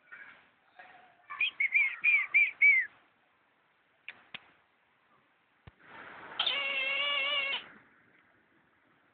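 Caged eagle calling: a quick run of about five short, sharp yelping notes, each dropping in pitch. A few seconds later comes one longer, steady, held tone lasting about a second.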